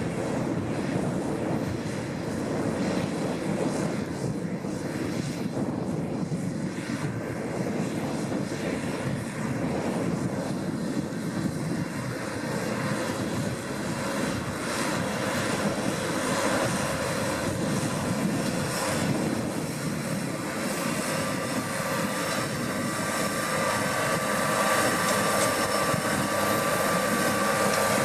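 New Holland T7040 tractor's six-cylinder diesel engine running steadily under load while seed drilling, growing louder over the last few seconds as it draws nearer.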